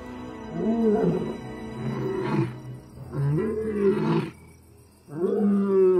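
Male desert lion roaring, four loud calls in a row with the last one the longest, a contact call to his missing coalition brothers. Soft background music runs underneath.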